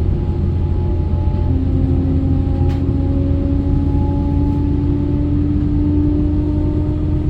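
Class 810 Aurora bi-mode train running under diesel power and pulling away, with a steady low rumble and a tone that starts about a second and a half in and climbs slowly as the train accelerates.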